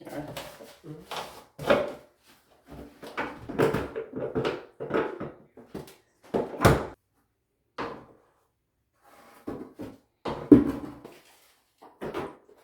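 Irregular clattering and knocking of tools and materials being handled, a string of short sharp knocks and scrapes with brief pauses between them, the loudest near the end.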